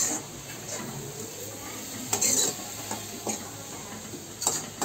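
Chopped green onions sizzling as they fry in a steel kadhai, stirred with a metal spoon that scrapes and clinks against the pan. The stirring is loudest about two seconds in.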